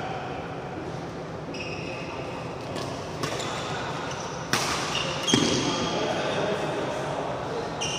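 Badminton rally: a few sharp racket hits on the shuttlecock a little past the middle, with short high squeaks of court shoes on the floor before and after them.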